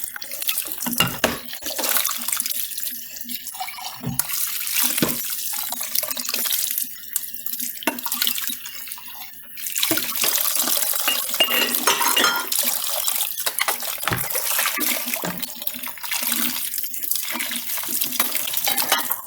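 Dishes being washed at a sink: tap water runs in spells, stopping and starting several times, with scattered knocks of dishes.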